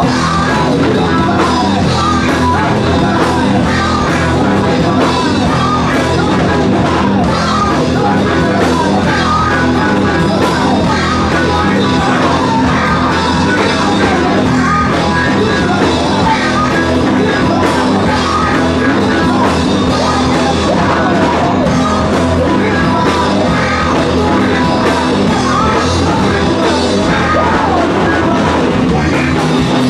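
Live rock band playing loudly: electric guitar and drum kit, with a singer shouting into the microphone.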